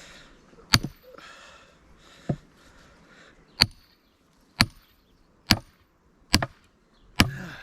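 Seven heavy blows about a second apart, each a sharp crack with a brief metallic ring: a sledge hammer and splitting maul being driven into a big log round to split it along its check.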